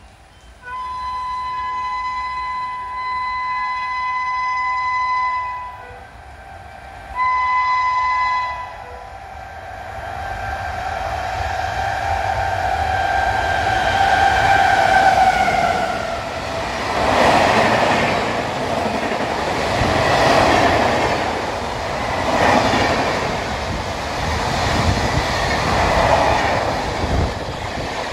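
Electric locomotive of an Indian Railways express sounding its horn, one long blast and then a short one, as the train approaches at speed. A whine grows and drops in pitch as the locomotive passes. The coaches then rush by with a loud rhythmic clatter of wheels over the rail joints.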